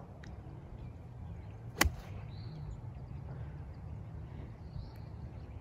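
A golf club striking the ball on a fairway shot: a single sharp click a little under two seconds in, over a low steady rumble.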